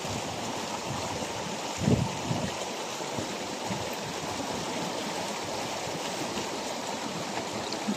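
Shallow stream water rushing and splashing steadily around people wading through it, with a dull thump about two seconds in.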